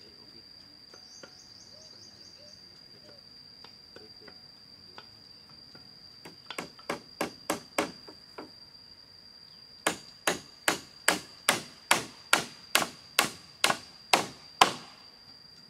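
Hand tool striking bamboo poles: a quick run of light blows about six seconds in, then a louder, even run of about a dozen blows roughly three a second. A steady high insect drone runs underneath.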